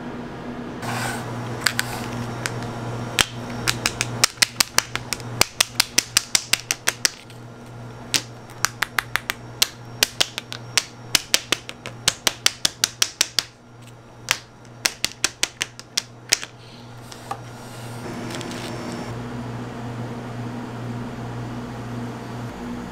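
Clear plastic chocolate mould tapped repeatedly on the counter, knocking the poured white chocolate flat and bringing up air bubbles. The taps come as sharp clicks in quick runs of about four or five a second with short pauses, and stop near the end, over a steady low hum.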